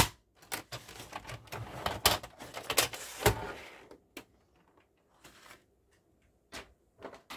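Paper trimmer cutting a sheet of file-folder card: a dense run of sharp clicks and scraping slides as the cutter runs along its rail, loudest at the start. After about four seconds only a few lighter knocks follow as the sheet and tools are handled.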